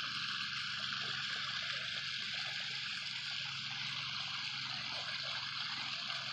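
Water from a newly built pondless waterfall splashing and trickling steadily over its rocks.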